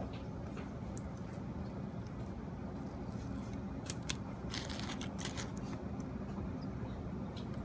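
Fingertips pressing and smoothing leaves onto adhesive tape on a plastic sheet, giving scattered short crisp clicks and crackles, most of them a little past the middle, over a steady low hum.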